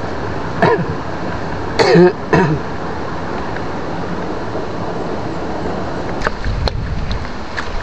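A person makes a few short vocal sounds, the loudest about two seconds in, over a steady rushing noise. A low rumble comes in near the end.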